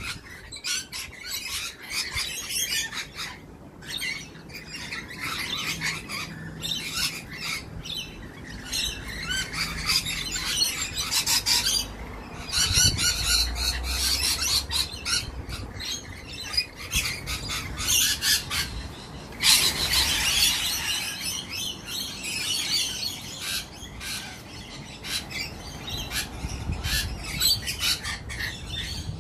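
A flock of rainbow lorikeets calling over one another: a constant run of short, sharp calls, loudest a little before halfway and again about two-thirds of the way through.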